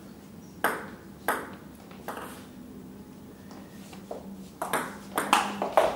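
Table tennis ball clicking off the paddles and the table during a rally. There are three spaced taps in the first two seconds, then a quicker run of hits near the end.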